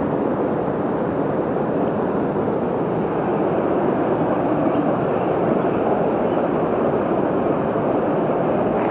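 Steady rush of a flooded river's current running high along the bank.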